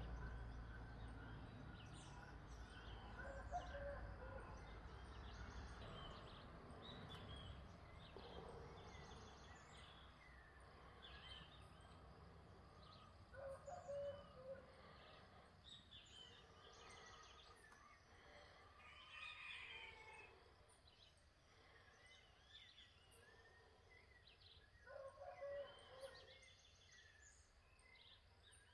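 Faint outdoor background with distant birds chirping now and then, two slightly louder bursts of calls midway and near the end. A low rumble fades out over the first few seconds.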